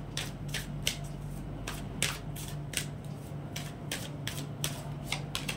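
A deck of oracle cards being shuffled by hand: a run of sharp card snaps and clicks, about three to four a second, unevenly spaced, over a low steady hum.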